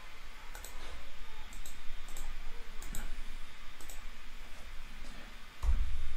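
Computer mouse clicks, several short sharp clicks with some in quick pairs. Near the end a low rumble sets in.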